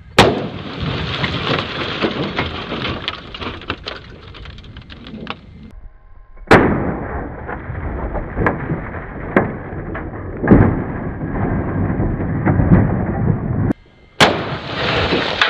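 Gunshots fired at old CRT computer monitors: at least three sharp shots, at the start, about six and a half seconds in, and near the end. Each is followed by several seconds of noise broken by scattered cracks.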